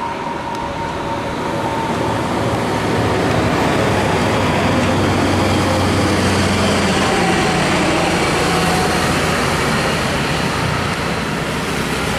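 Heavy diesel trucks passing close by, their engines running under a steady loud rush of tyre and road noise.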